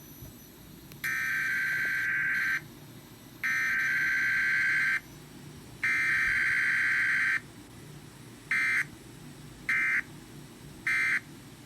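Emergency Alert System SAME digital data bursts: three long header bursts about a second and a half each, a second or so apart, then three short end-of-message bursts. No attention tone comes between them.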